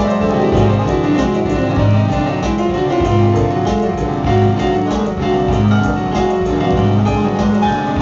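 Live instrumental band music led by keyboards with a piano sound, over a low bass note that pulses about once a second and light percussive hits.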